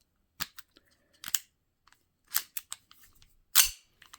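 Metal parts of 1911-style air pistols clicking and clacking as they are handled: about five or six separate sharp clicks, the loudest about three and a half seconds in.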